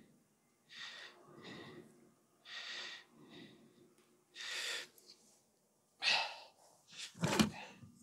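A person breathing close to the microphone: about six separate breaths, with a sharper knock near the end.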